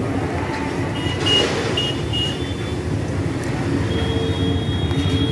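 Steady low engine rumble with an even pulse, with thin high tones over it about a second in and again near the end.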